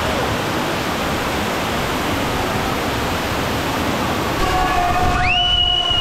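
Waterfall crashing steadily into a rock pool, a loud, even rush of water. Near the end a person lets out a long, held yell over it.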